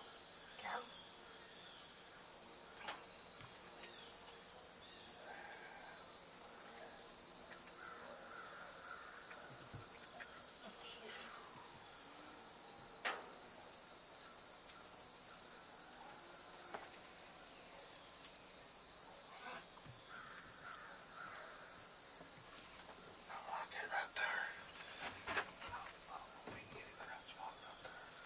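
Steady, high-pitched chorus of crickets. A single sharp click comes about halfway through, and a short cluster of clicks and scrapes comes near the end.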